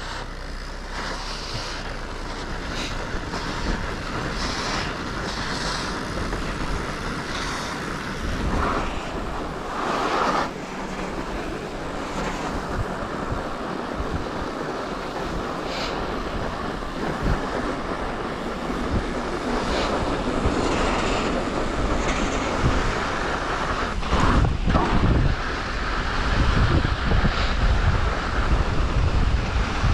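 Mountain bike rolling downhill on a car-packed snow road: steady tyre noise on the snow with the bike rattling, and wind buffeting the microphone, heavier over the last few seconds.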